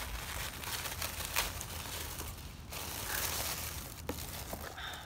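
Paper wrapping crinkling and rustling as hands unwrap items inside a cardboard subscription box, with a few sharp crackles.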